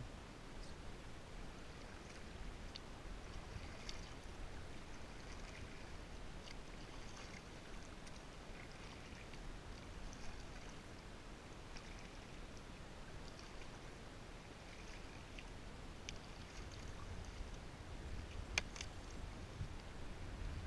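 Kayak paddle strokes splashing and dripping in the water every second or two, over a low rumble, with a single sharp click near the end.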